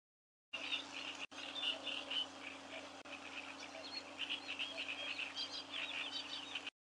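Pondside ambience with a chorus of many short, high chirping calls from small animals, growing denser in the second half, over a faint steady hum. It starts abruptly about half a second in.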